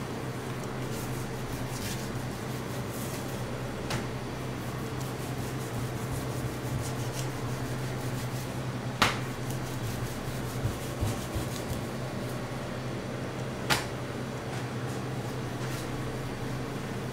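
Steady mechanical hum, with a few sharp knocks as a knife touches the cutting board while fat is sliced off a beef knuckle. The two loudest knocks come about nine and fourteen seconds in.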